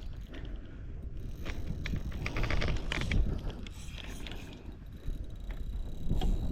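Fishing reel being cranked while playing a fish, with bursts of rapid clicking that are loudest around the middle.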